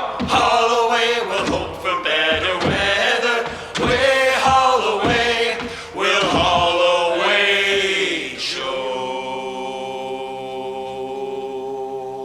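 A group of voices singing the last chorus of a sea shanty together. Near the end they hold one long final chord, which then stops.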